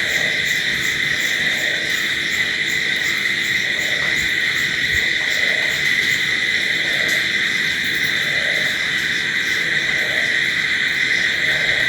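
Night chorus of crickets chirping without a break: a dense steady trill with a faster, even pulsing chirp above it. A soft lower pulse repeats roughly once a second beneath it.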